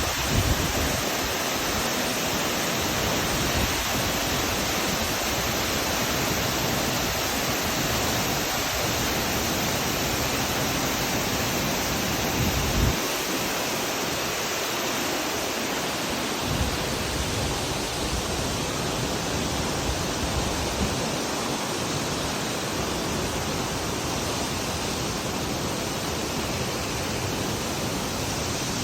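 Steady rushing of a waterfall, with a few brief low thumps on the microphone.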